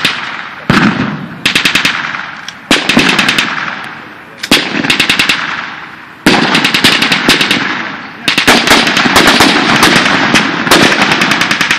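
Automatic weapons firing blanks in bursts of rapid shots, with short bursts at first, then long, almost unbroken fire in the second half. Each burst trails off in echo.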